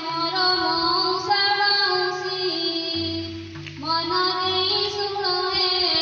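A high female voice singing an Odia song over instrumental backing of held notes and a stepping bass line.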